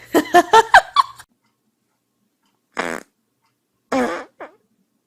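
Farting: a quick run of pitched pops in the first second, then a short hissing blast near the middle and another short pitched fart near the end.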